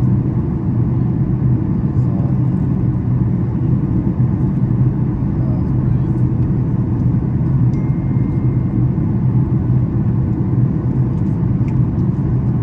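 Boeing 737 MAX 8 cabin noise during descent: a steady low rumble of airflow and engines, heard from inside the passenger cabin.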